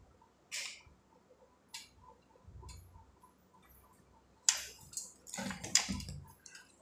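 A faint, regular ticking runs throughout. Over it come short bursts of rustling and scratching on fabric from a cat shifting and pawing at the sofa cushion, with a cluster of them, the loudest, a little past the middle.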